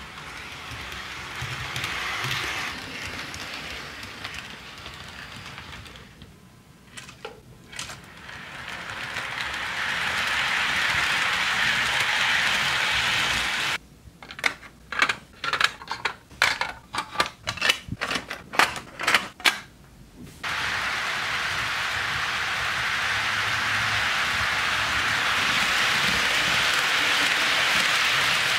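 HO scale model freight train rolling along sectional track: a steady rattling hiss of small wheels on rail that swells and fades as the train passes. About midway it gives way to a run of sharp plastic clicks and taps as a model shipping container is handled and set onto a well car, then the rolling rattle comes back.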